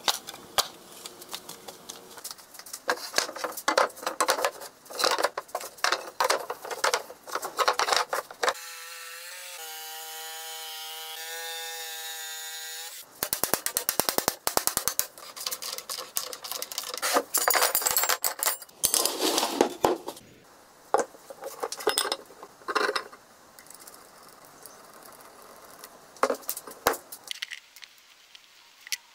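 Workshop sounds from several tasks in turn: knocks and clatter of wooden boards and metal being handled and hammered. In the middle a steady, pitched machine whine runs for about four seconds, followed by a fast run of clicks, then more scattered knocks.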